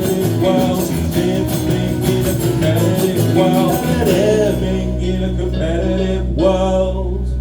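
Live band with guitar playing the last bars of a song, settling about four and a half seconds in onto a long held final chord with a steady low bass. A last sung note comes near the end.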